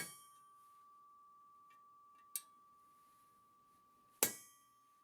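Hammer tapping a steel transfer punch to mark hole locations, three sharp metallic strikes that ring briefly: a hard one at the start, a lighter one about halfway, and another hard one near the end.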